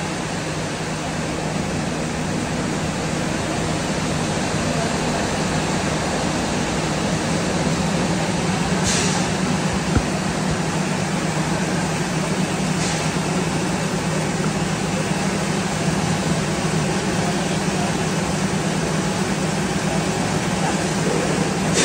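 Double-deck vibro sifter screening machine running: a steady hum and even mechanical noise from its vibrating decks and motor, with a couple of brief sharp ticks and a knock near the middle.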